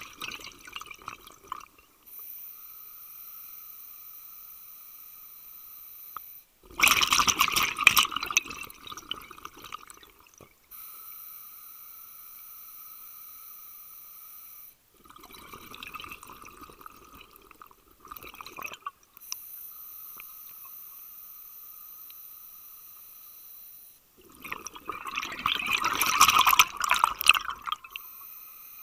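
A scuba diver breathing through an open-circuit regulator: three slow breaths, each a steady hissing inhale of a few seconds followed by a louder bubbling exhale, the exhales coming about 7, 15 and 24 seconds in.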